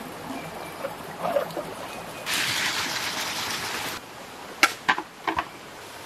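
Water splashing in a shallow, muddy stream as hands work in it to mend a small dam, loudest for a couple of seconds in the middle. Then four sharp knocks in quick succession.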